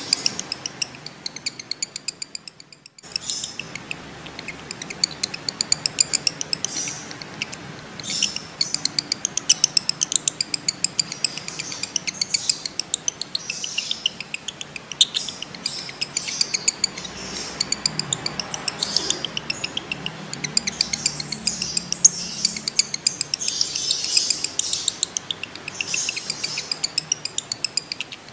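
Male lovebird chattering in long, rapid runs of sharp high chirps, the drawn-out trill known as 'ngekek panjang', with a brief break about three seconds in.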